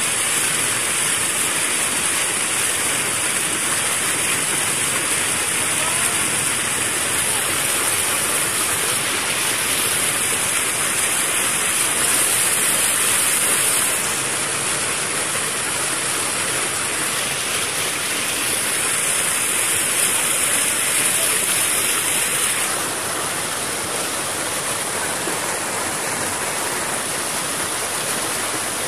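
Fast-flowing floodwater rushing and churning in white water around people wading in it, a steady, even noise that becomes a little quieter for the last few seconds.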